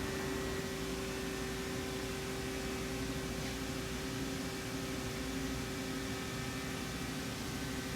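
Steady machinery hum with several steady tones over a low rumble, unchanging throughout.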